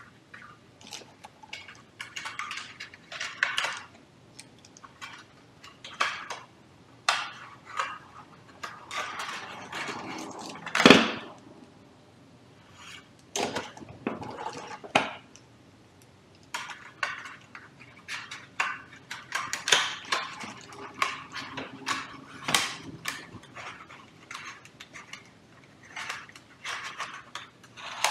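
Hands handling plastic and metal fuser parts of a Canon copier's fixing assembly, including the fixing film sleeve: irregular clicks, clatter and scraping rustles, with one sharp, louder knock about a third of the way in.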